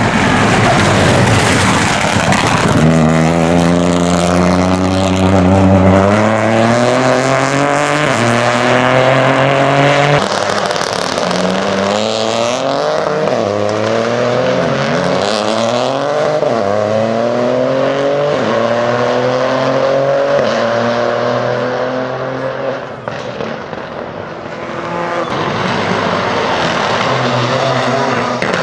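Peugeot 208 Rally4's turbocharged three-cylinder engine revving hard through the gears, its pitch climbing and then dropping sharply at each gear change, with easing and falling revs into the corners. A dense rush of noise fills the first few seconds.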